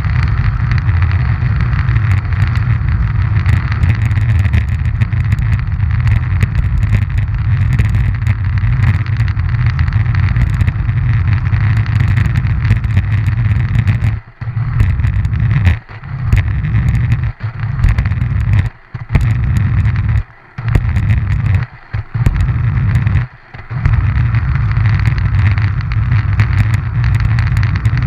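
Close-up rumble of small wheels rolling on coarse track asphalt, steady and deep. In the second half the rumble cuts out for short moments about every second and a half.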